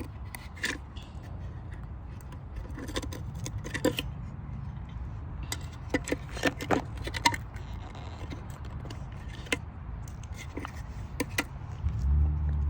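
Scattered metallic clicks and clinks from handling car-horn wiring, connectors and tools, over a steady low rumble. A louder low hum sets in near the end.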